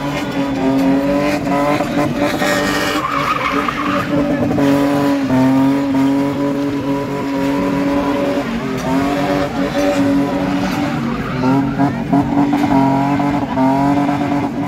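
BMW E30 sedan spinning doughnuts: its engine is held high in the revs, steady for long stretches and dipping and rising a few times, while the rear tyres spin and squeal.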